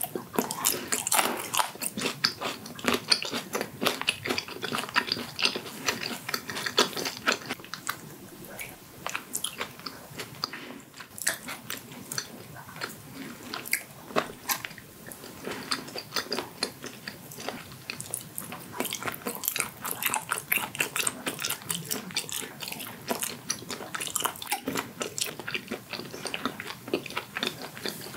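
Close-miked eating sounds: wet chewing and crunching of a fresh red chili pepper and steamed whelk meat, full of small irregular clicks and crackles, with a fork picking meat from a whelk shell partway through.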